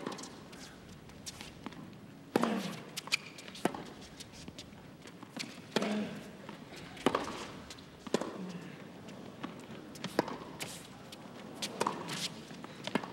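Tennis rally: rackets striking the ball about every one to two seconds, sharp hits over a low steady background.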